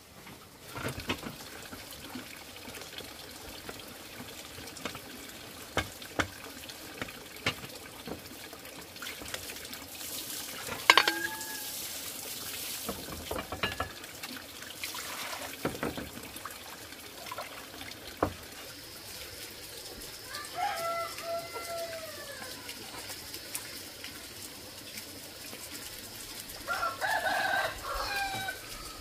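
A rooster crowing, one curved call about two-thirds in and another near the end. Between them are scattered knocks and clinks, one sharp knock near the middle being the loudest, over a background of running, splashing water.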